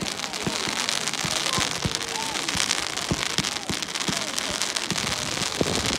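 Fireworks going off in quick succession: a dense string of sharp bangs and crackles over a continuous hiss.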